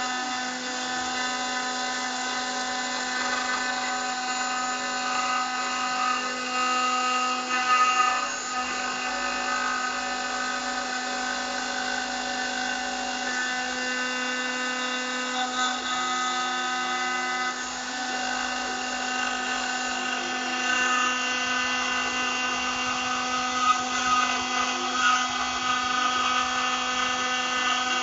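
CNC engraving spindle running at a steady high whine while its bit cuts letters into aluminium, the cutting noise changing slightly as the tool moves.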